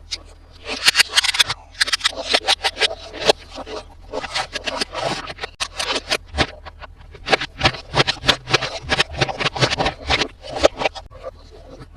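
Hands unboxing and handling plastic toys and their packaging: a busy, irregular run of crinkles, scrapes and sharp clicks.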